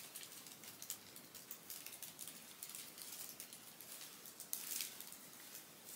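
Faint rustling and light ticking of a fabric dress being handled and turned over, with a slightly louder rustle about four and a half seconds in.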